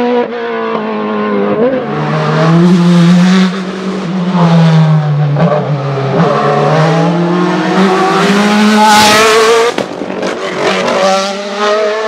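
Sports prototype race car's engine at high revs, its pitch climbing and then dropping several times as it shifts up under hard acceleration. About nine seconds in there is a loud hissing rush as it passes closest.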